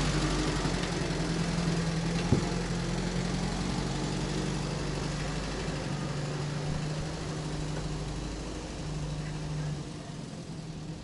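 UAZ 31512 engine idling steadily, newly brought back to running. There is one sharp click about two seconds in, and the sound gradually gets quieter toward the end.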